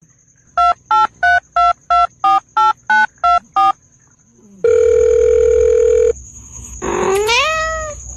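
Telephone keypad dialing tones: about ten short two-note beeps, roughly three a second, then one steady beep lasting about a second and a half. Near the end comes a short call that rises in pitch.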